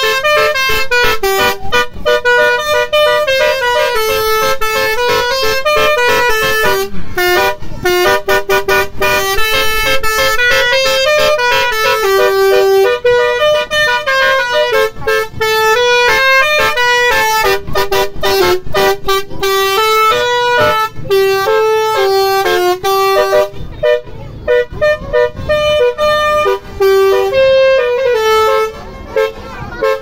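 Car-mounted basuri telolet horn playing a melody, a quick run of stepped, buzzy horn notes one after another. The tune breaks into shorter phrases with brief gaps in the second half.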